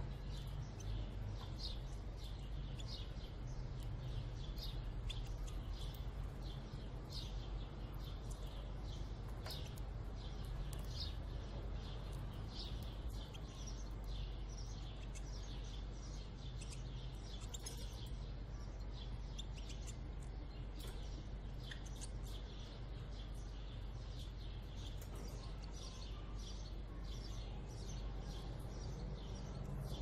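European goldfinches chirping: a steady run of short, high calls, several a second, over a constant low hum.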